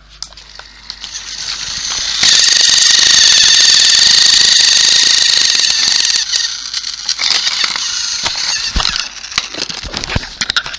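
Small electric motor of a battery-powered toy Thomas engine on plastic track: a loud, steady high whine for about four seconds that cuts off suddenly, followed by clicking and rattling of wheels and gears.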